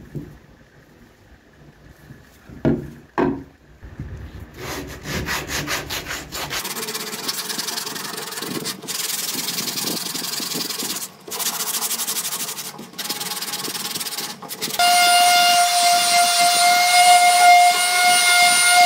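Two knocks as a wooden blank is set down, then the rough, uneven scrape of the wood being rubbed by hand, stopping briefly now and then. About fifteen seconds in, a small electric detail sander starts on the wood and runs with a loud, steady whine.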